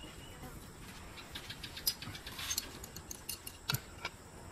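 Light metallic clicks and taps of a small wire bracket being handled and fitted onto a motorcycle exhaust pipe, with a few sharper clicks in the second half.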